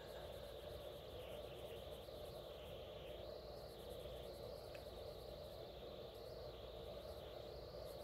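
Faint steady background hum and hiss.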